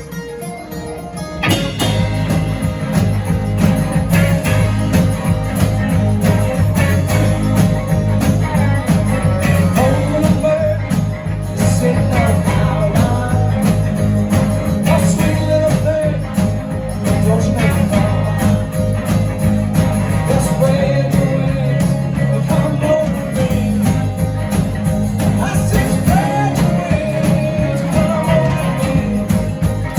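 Live band playing a song, with guitar and a strong low bass line, the sound getting fuller about a second and a half in.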